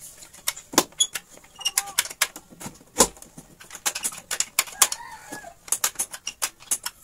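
Irregular sharp clicks and knocks from a plastic CRT television cabinet being handled and turned on a table, with a chicken clucking in the background about a second and a half in and again near five seconds.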